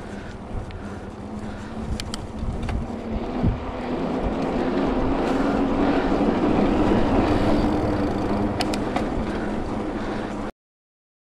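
Wind and tyre noise from riding a mountain bike on asphalt, picked up by a handlebar-mounted camera, growing louder over the first several seconds with a few sharp clicks. It cuts off abruptly near the end.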